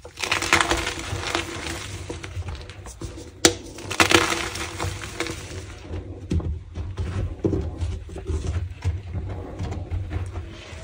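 Slices of gym chalk topped with powder being crushed. Crunching and crumbling is loudest in the first second or so and again around four seconds in, with a sharp snap about three and a half seconds in, and softer crackles after that.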